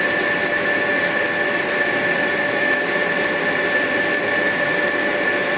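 TIG welding arc burning steadily: a continuous hiss with a constant high-pitched whine over it.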